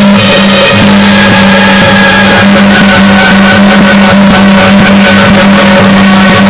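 Taiwanese beiguan ensemble music, very loud: a pitched melody over continuous dense percussion strokes.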